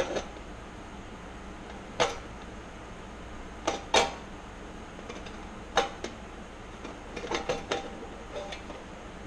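Hand sheet-metal snips cutting the thin metal of an engine airbox: a string of sharp, irregularly spaced snips, with a quick run of several close together near the end.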